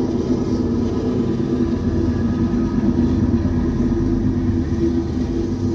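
BNSF freight train's diesel locomotives running as the train passes: a steady engine drone over a low rumble.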